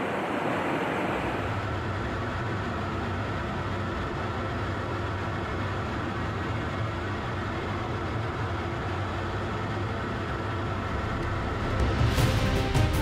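Steady jet aircraft noise in flight, engine and airflow drone as heard inside a fighter's cockpit, settling into a lower drone a second or two in. Music with a sharp beat comes in about a second before the end.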